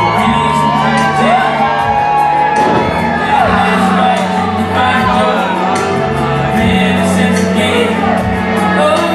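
Loud entrance music with a sung vocal over held bass notes, the singing line gliding up and down.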